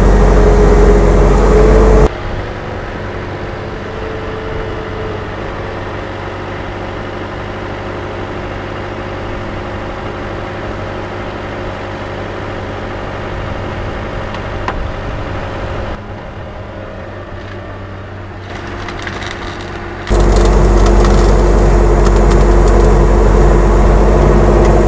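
Skid steer engine running steadily. It is loud for the first couple of seconds and again from about twenty seconds in, and much quieter in between.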